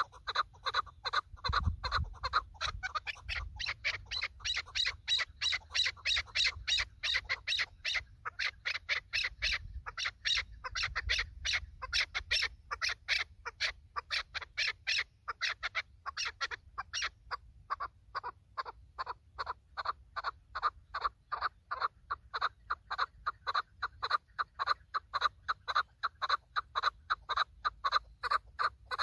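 Chukar partridge calling: a long run of rapid, repeated clucking notes, about two to three a second, with brief gaps.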